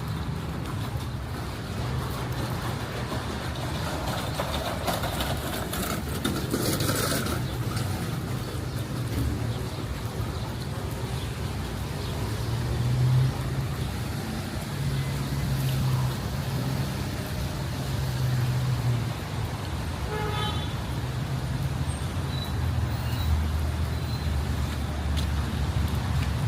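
Street traffic on a rain-wet city street: car engines running and vehicles passing, with a louder hiss of a passing vehicle about six to seven seconds in.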